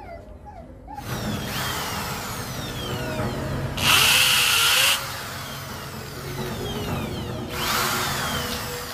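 Corded electric drill running, starting about a second in, with two louder spells as it bites, the loudest about four seconds in and a shorter one near the end.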